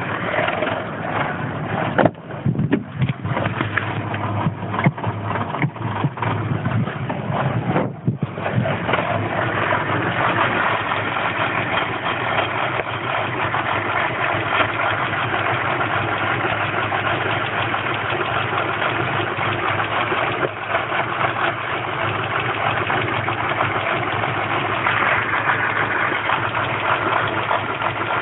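Land Rover Freelander's 1.8 K-series four-cylinder petrol engine running. About two seconds in it stutters and surges unevenly for several seconds, then settles into a steadier run. The rough running is typical of fuel starvation from the failing fuel pump that the owner found to be the fault.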